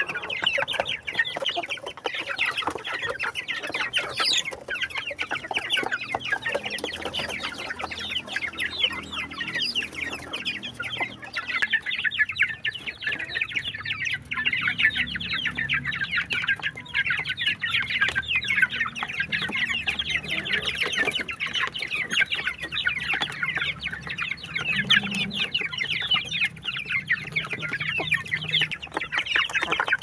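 A flock of chickens clucking and pecking at feed in a trough, with a dense, rapid clicking of many beaks.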